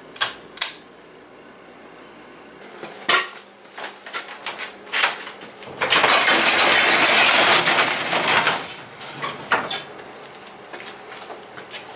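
The pull-chain switch of a shop light clicks twice. Then a metal sectional garage door rattles and clatters loudly for about three seconds as it is raised, with scattered knocks around it.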